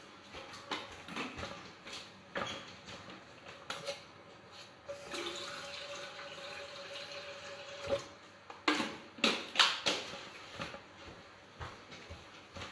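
Water running from a kitchen tap into a vessel for about three seconds, with a steady note as it fills, then a few sharp knocks as the vessel is handled; it is water being drawn to be heated for the cake batter.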